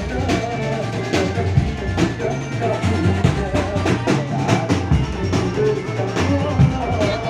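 Loud music with a steady drum beat and melody, the accompaniment for a jaran kencak dancing-horse performance.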